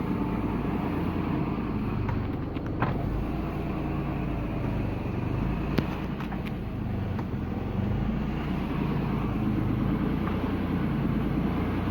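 Mazda Xedos 6 engine idling steadily, with a couple of sharp clicks about three and six seconds in.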